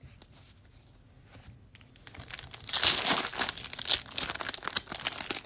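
Foil wrapper of a Chronicles basketball trading-card pack being torn open and crinkled in the hands, starting about two and a half seconds in and loudest just after it begins, after a few faint clicks.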